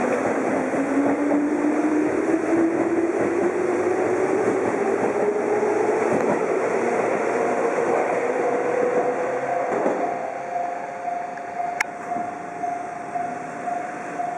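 Seibu New 101 series electric train accelerating, its traction motor whine rising steadily in pitch over the rumble of the wheels. About ten seconds in, a level-crossing warning bell takes over, ringing in a steady, even rhythm.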